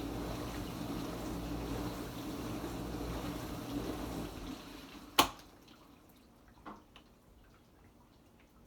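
Kenmore Ultra Wash 3 dishwasher in its quick rinse cycle: the pump and water spray run steadily with a low hum, then wind down about four seconds in. A sharp click about five seconds in and a softer one a second and a half later are followed by faint dripping and ticking.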